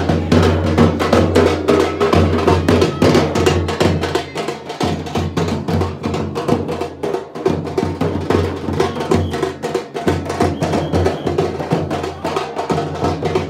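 Loud drum music with rapid, dense strokes over a steady low bass drone.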